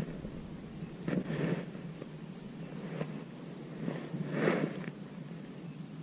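Steady high-pitched insect trill, with two short soft rushing noises, one about a second in and one about four and a half seconds in.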